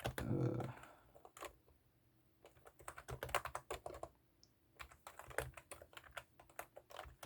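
Typing on an ABKO MK108 membrane keyboard with one finger: soft keystroke clicks in irregular runs, with a couple of short pauses.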